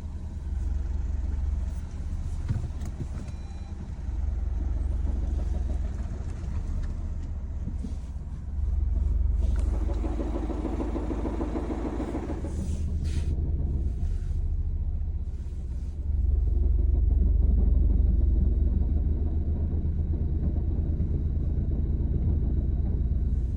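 Renault Scénic III 1.6 dCi four-cylinder diesel engine running with the clutch slipping at its biting point, giving a low rumble with a fast rattle. The noise swells in stretches, loudest around the middle. It is the noise the owner hears when the clutch is at its biting point.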